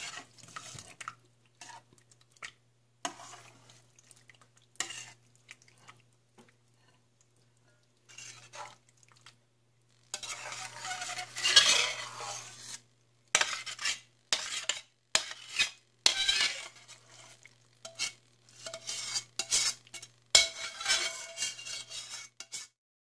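Creamy penne and meatballs being scraped out of a metal pan into a glass bowl: irregular scrapes, clinks and knocks of utensil and pan against the bowl, sparse at first and busier in the second half.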